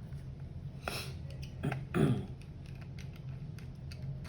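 Light clicks and taps of a small screwdriver and tool being handled against a laptop's base panel and screws, over a steady low hum, with two louder brief scrapes about one and two seconds in.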